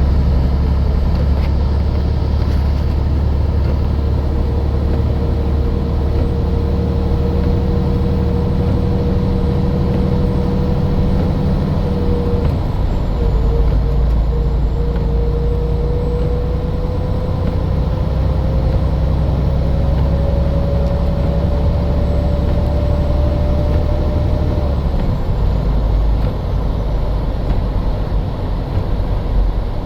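Motor vehicle running with a steady low rumble, and a whine that climbs slowly in pitch about halfway through, then stops near the end.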